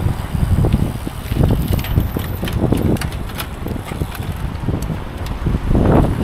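Wind buffeting the microphone of a camera riding along on a bicycle, a rough rumble that swells and eases, with scattered small clicks and rattles.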